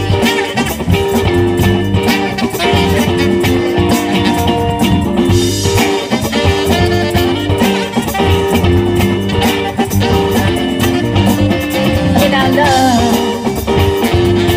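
Live band playing a steady rock-funk groove without vocals: electric guitar, bass guitar and drum kit on a repeating riff.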